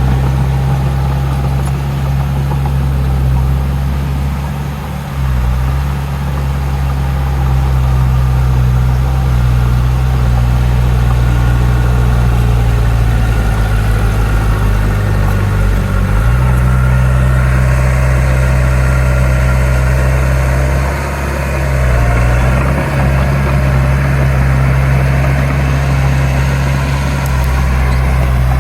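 Heavy diesel engine of earthmoving machinery running steadily with a strong low hum. The load changes briefly a few times, and from about two-thirds of the way through a harsher, busier working noise joins in.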